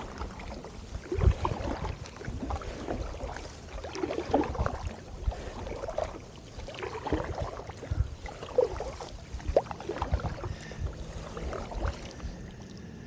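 Double-bladed kayak paddle strokes on calm lake water: the blades dip and pull, with splashes and drips about once a second alongside an inflatable kayak. The strokes stop near the end as the kayak glides.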